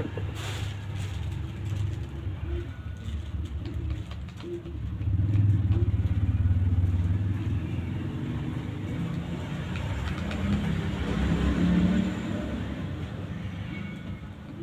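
Low rumbling that swells about five seconds in and again around ten to twelve seconds.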